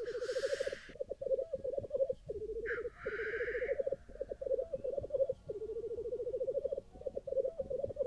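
Lekking male black grouse: a continuous bubbling, cooing rookoo song, broken by two hissing 'tshu-whee' calls about a second long, one right at the start and one nearly three seconds in.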